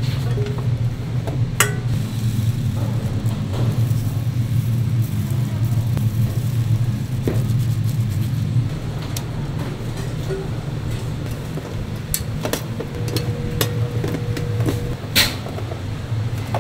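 Steady low machine hum, with scattered clinks and scrapes of a steel ladle, spatula and tongs against stainless steel trays; the sharpest clinks come about a second and a half in and again near the end.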